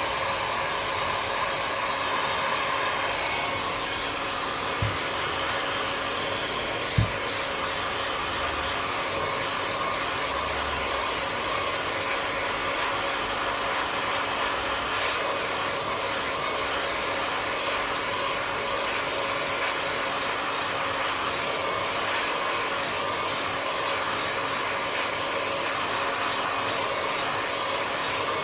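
Hot-air gun blowing steadily, heating the phone to soften the adhesive under its glued screen. Two short knocks about five and seven seconds in.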